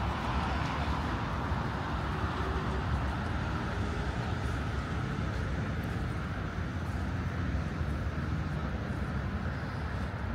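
Steady city traffic noise: a continuous low rumble of passing cars' engines and tyres.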